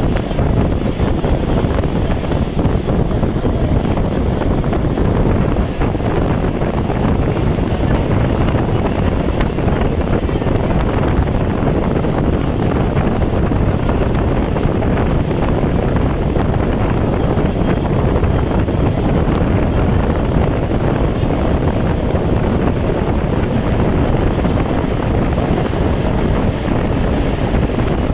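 Loud, steady wind rushing over the microphone on top of the running noise of a moving train.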